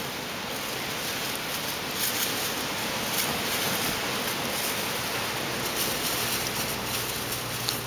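Strong wind blowing outside an open window during a snowstorm, a steady rushing noise with gusts swelling about two seconds in. A low steady hum comes in about six seconds in.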